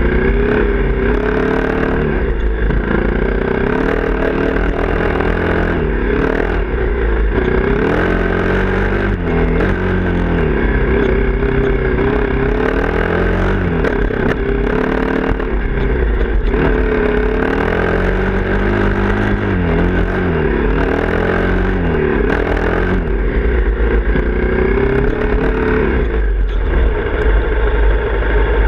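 Honda CRF250L's single-cylinder four-stroke engine under way on a dirt trail, its revs rising and falling again and again with the throttle, with wind rumble on the microphone and clatter over bumps.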